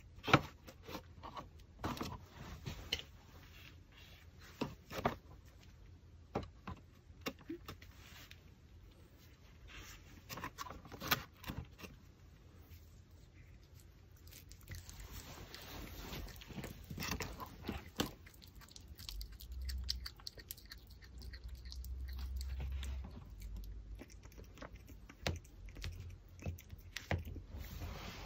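Pomeranian chewing and gnawing a raw pork backbone: irregular crunches and clicks of its teeth on the bone.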